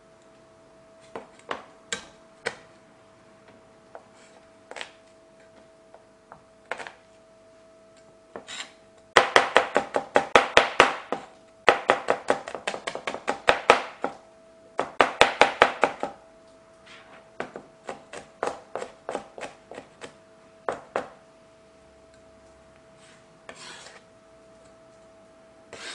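Chinese cleaver chopping garlic cloves on a plastic cutting board: scattered single knocks at first, then three runs of rapid chopping in the middle, the loudest part, then slower separate knocks. A faint steady hum runs underneath.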